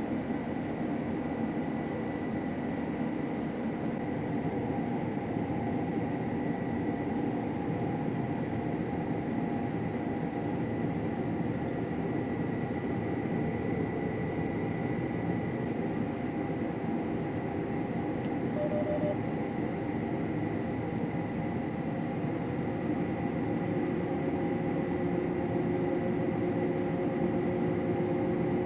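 Combine harvester running steadily while cutting wheat: a continuous, even machinery drone with a faint steady high whine over it.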